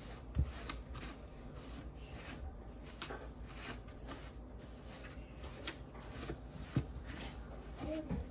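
Metal spoon scraping and clicking against a stainless steel mixing bowl in short, irregular strokes as firm butter is mashed into cinnamon sugar. Two dull knocks come about half a second in and near the seven-second mark.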